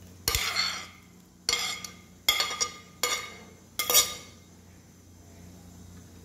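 Metal spoon scraping and knocking diced tomato off a ceramic plate into a metal pot: about five sharp clinks and scrapes over the first four seconds.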